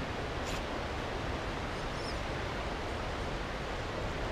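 Steady outdoor background hiss with no distinct source standing out, and a faint tick about half a second in.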